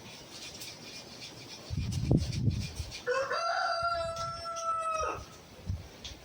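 A rooster crowing once: one long, held call starting about three seconds in and lasting about two seconds. A few dull low thumps come just before it.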